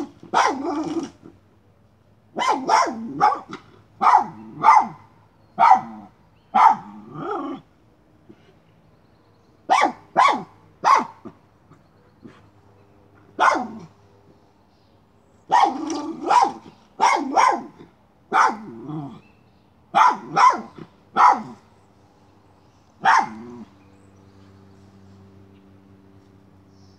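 Miniature schnauzer barking at a chipmunk hiding in a pile of plastic pipes: short sharp barks in quick clusters, with pauses of a few seconds between them. The barking stops near the end.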